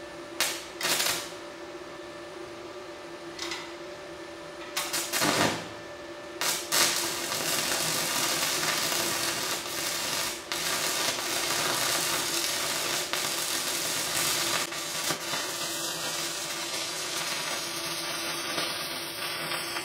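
Stick (MMA) welding arc from a 3.2 mm electrode at 120 amps on a Daesung MIG-120 SE inverter welder: a few short sputters as the arc is struck during the first six seconds, then a steady crackling burn. A steady low hum runs underneath.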